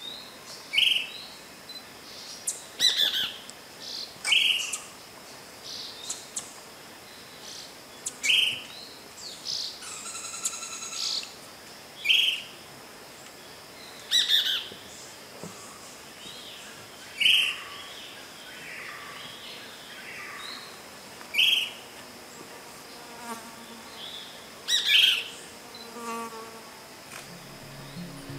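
Dusky-chested flycatcher giving short, high calls, one every few seconds, over a faint steady high tone.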